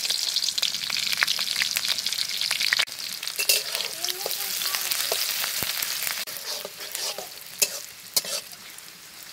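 Sliced onions sizzling in hot oil in a steel kadhai (wok), stirred with a metal spatula that scrapes and clicks against the pan. The sizzle grows gradually quieter as the onions cool the oil, and two sharp spatula knocks come near the end.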